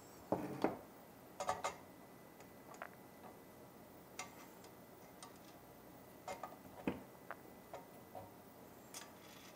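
Irregular light clicks and taps of a 3D-printed motor mount and T-nuts being handled and aligned against an aluminium extrusion frame, loudest just after the start and about seven seconds in.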